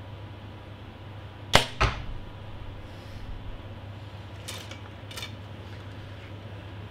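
PSE Perform X compound bow shot: a sharp crack as the string is released, then the arrow strikes the target about a quarter second later. Two lighter clicks follow a few seconds on, over a steady low hum.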